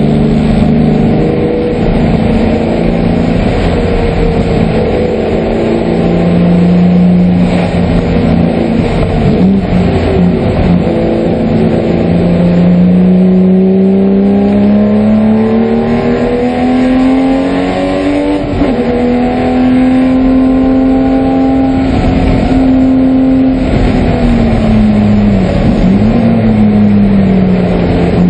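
Porsche 996 race car's flat-six engine running under load, heard from inside the stripped cockpit. The engine pitch climbs slowly for a long stretch, drops sharply about two-thirds of the way through, then falls and swoops back up near the end.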